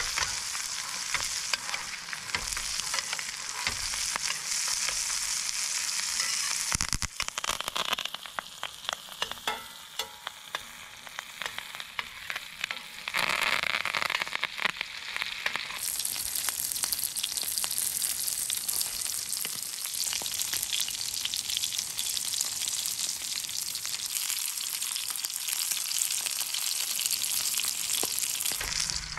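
Ribeye steak frying in butter in a stainless steel skillet: a steady sizzle dense with fine crackles as the hot butter is spooned over the meat, easing off a few seconds in and then picking up again.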